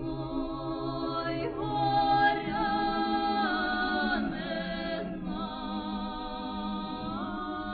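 Unaccompanied choir singing, voices holding long notes that glide slowly from one pitch to the next.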